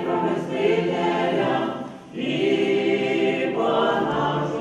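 Church choir singing a funeral-service chant unaccompanied, in long held chords. The singing breaks off briefly about two seconds in, then resumes.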